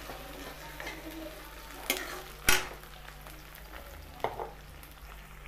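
Onions, green chillies and peas with ginger-garlic paste frying in hot oil in a kadhai, sizzling steadily while being stirred with a spoon. The spoon knocks against the pan a few times, loudest about two and a half seconds in.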